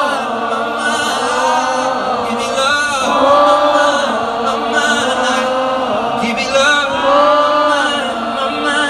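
A large concert crowd singing a repeated refrain as a two-part choir, one half holding a lower harmony and the other a higher one. The phrase swells and repeats about every three seconds without a break.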